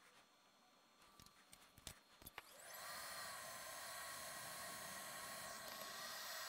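A few light clicks and handling taps, then about three seconds in a small fan-cooled UV curing lamp switches on and runs with a steady airy hiss and a faint whine that wavers in pitch, curing freshly applied blue UV solder mask.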